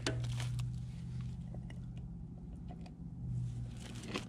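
Light clicks and rustling from hands handling things, over a steady low hum.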